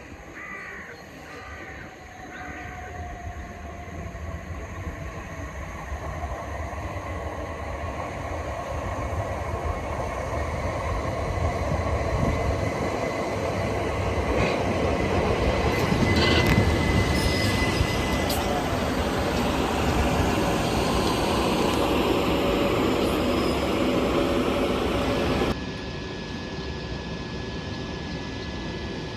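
Electric passenger train running through the station, growing steadily louder over about twelve seconds as it approaches, with a few wheel clicks and a brief squeal while it passes, then dropping abruptly near the end.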